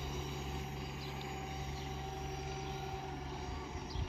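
Railway level-crossing barrier arms rising on their electric drive, with a steady low hum throughout and a sudden thump right at the end.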